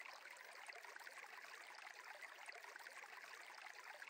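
Faint, steady trickle of a flowing stream.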